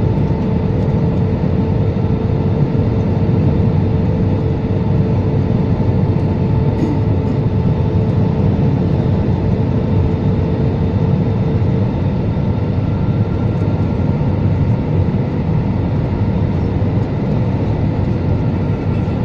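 Jet airliner cabin noise on final approach, heard from a window seat over the wing: a steady low rumble of engines and airflow with a steady humming tone that fades out about two-thirds of the way through.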